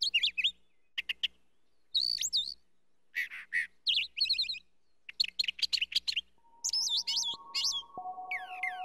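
Birds chirping and twittering in short bursts of quick, high whistled calls, with brief silences between. About six seconds in, soft held musical notes enter beneath the calls.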